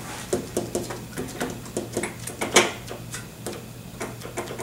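Keys and pads of a Levante bass saxophone clicking and clapping shut on their tone holes in a quick, irregular run as the keywork is worked to free the shipping key corks. One louder clack comes about two and a half seconds in.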